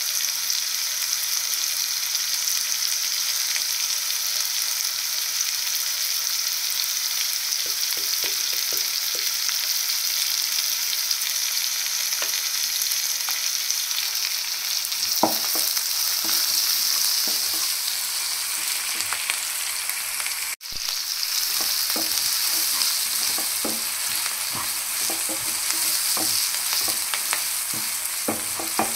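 Food frying in hot oil in a kadai: a steady sizzle, with scattered short knocks of stirring. The sound breaks off for an instant about two-thirds of the way through.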